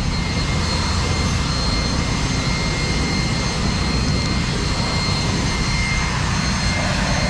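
Lifted Ford Super Duty pickup's engine running steadily as the truck creeps forward, a constant low rumble with a thin high whine running through it.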